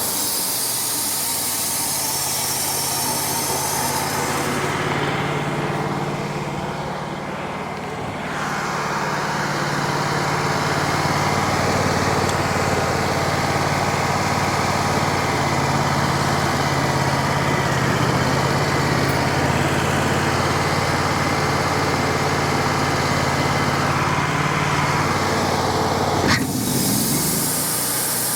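Wood-Mizer LT35 sawmill engine running steadily. A few seconds in, its higher hiss and whine drop away, then return and stay fuller from about eight seconds on. Near the end the sound changes abruptly with a sharp click.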